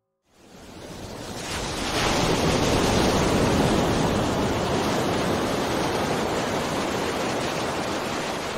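Ocean surf washing onto a beach: a steady rush of noise that swells in over the first two seconds and eases slightly toward the end.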